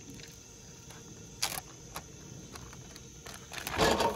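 A few light clicks and taps, then a louder crinkling rustle of a clear plastic zip-top bag being handled, about three and a half seconds in. Under it runs a faint, steady, high insect drone.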